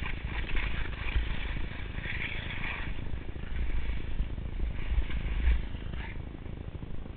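Wind noise on a head-mounted camera's microphone, with the hiss of telemark skis sliding and turning through snow. The hiss swells through the first three seconds and again about five to six seconds in.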